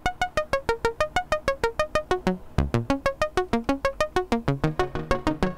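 Eurorack modular synthesizer playing a fast Euclidean arpeggio of short plucked notes that step up and down in pitch. A lower bass line joins in about halfway through.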